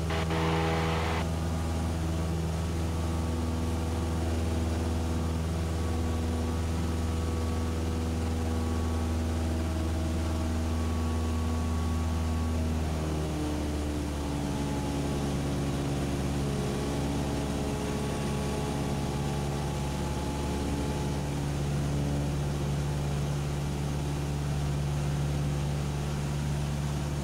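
Cessna 172SP's four-cylinder Lycoming engine and propeller droning steadily in the cabin during the climb in the traffic pattern. The pitch drops slightly about thirteen seconds in.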